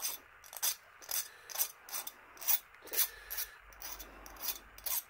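Hand file rasping back and forth across the edge of cut stainless steel, about two scratchy strokes a second, deburring it into a smooth chamfer.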